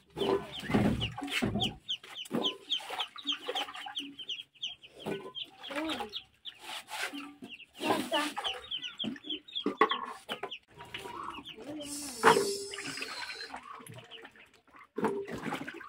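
Chicks peeping rapidly in quick high chirps and a hen clucking, with cassava pieces knocking and water sloshing in a basin as they are washed; one sharp knock stands out about twelve seconds in.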